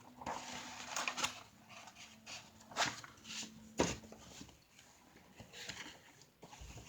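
Rustling and a few short clicks from the pages of a large picture book being handled and turned.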